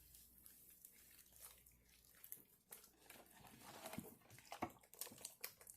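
Faint rustling, light crinkling and small scattered clicks of hands rubbing seasoning mixture over a raw turkey in its roasting pan.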